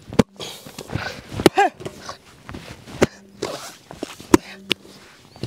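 Large ball of yeast dough being kneaded by hand on a steel plate: about five irregular sharp slaps as the dough is pressed and turned, with softer handling noise between.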